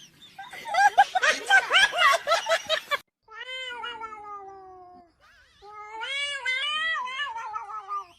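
Domestic cat giving two long, drawn-out meows: the first slides down in pitch, the second wavers up and down like a yowl. Before them, a loud jumble of quickly changing vocal sounds breaks off suddenly about three seconds in.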